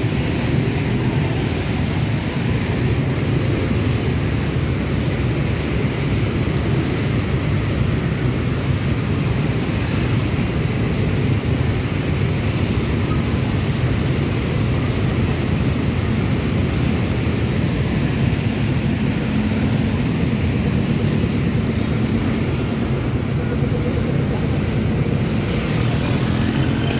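Steady drone of dense motorbike and scooter traffic on a city street, engines and tyres blending into one continuous rumble.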